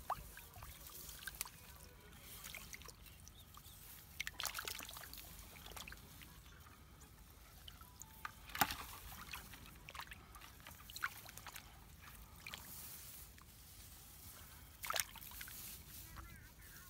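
Hands sloshing and dabbling in shallow, muddy rice-paddy water, with a few sharp splashes standing out, the loudest about halfway through.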